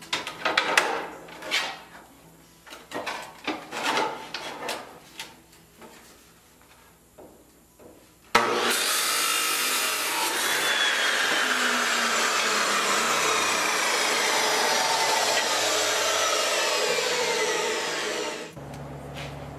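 Steel buggy tire clanking and knocking as it is handled and set against an abrasive chop saw. About eight seconds in the chop saw starts and grinds through the steel hoop for about ten seconds, its pitch slowly falling as the blade bites, then stops.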